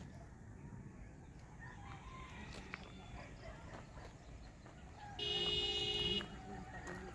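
A rooster crows once, a single call about a second long, near the end. Faint, short chirps are heard around it.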